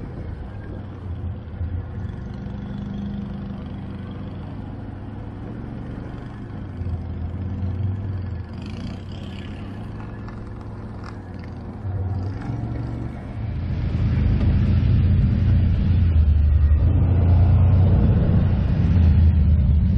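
ATV engine running on a trail, a steady low drone that picks up and runs louder from about two-thirds of the way in, as if under throttle.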